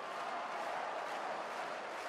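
Steady hubbub of a large stadium crowd, many voices blending into an even murmur.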